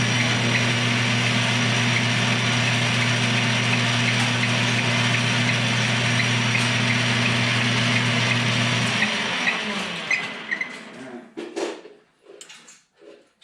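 Metal lathe running steadily while turning a chamfer on the end of an aluminum block. It is switched off about nine seconds in and spins down, followed by a few light knocks.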